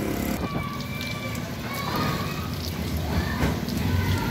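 Daihatsu Charade 1.0-litre three-cylinder turbo-diesel engine, out of the car, running steadily with a low even rumble, and water splashing near the end as it is poured into the coolant hose.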